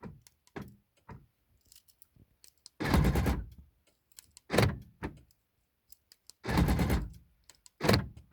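Door lock of a 2004 Mercedes-Benz E500 (W211) being worked by its interior lock knob. It clunks four times, in two pairs, as it locks and unlocks, with light clicks and rattles between.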